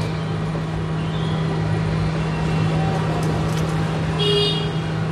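Steady low hum over road traffic noise, with a short high-pitched vehicle horn toot about four seconds in.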